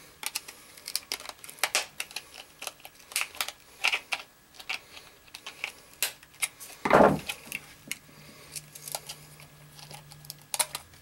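Small plastic clicks, ticks and scrapes of a flip phone's plastic housing being unscrewed and pried apart with a small screwdriver, with one louder thump about seven seconds in.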